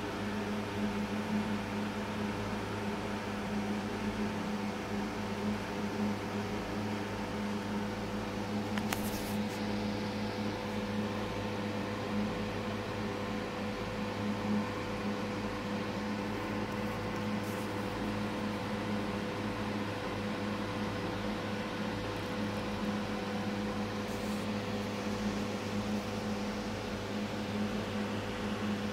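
Steady electrical hum of running aquarium equipment, a low even drone over a soft hiss, with a brief click about nine seconds in.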